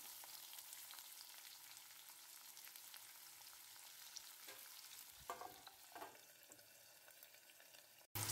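Faint sizzle of chopped onions frying in hot oil in a steel kadhai, with a few soft knocks about five to six seconds in.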